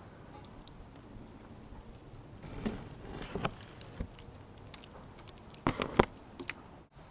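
Thick roofing tar, thinned with paint thinner, pouring from a bucket and landing in globs on the steel keel bottom. It makes scattered soft splats and patters, with two louder plops near the end.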